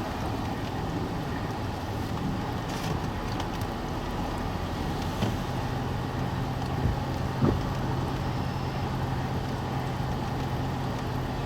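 Steady car noise from inside the cabin: an even rumble and hiss, with a low steady hum that comes up about halfway through.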